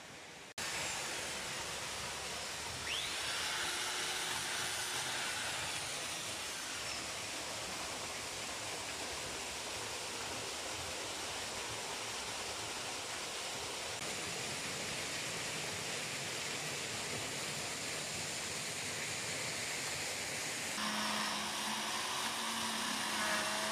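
Steady rush of water falling at the mill weir. About three seconds before the end, a small electric chainsaw's motor starts with a steady hum as it cuts into the wooden water-wheel shaft.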